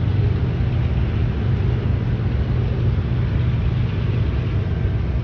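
Freight train passing: a steady low rumble that holds at an even level throughout.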